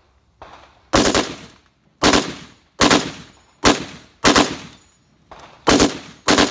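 Browning 1919 belt-fed machine gun in .308 firing a string of about seven separate shots and very short bursts of one or two rounds, roughly one a second, each a sharp report with a brief ring-out.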